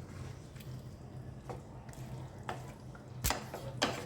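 Chicken curry in a pot being stirred: a few soft, wet clicks and taps of the spoon against the pot, the loudest about three seconds in, over a steady low hum.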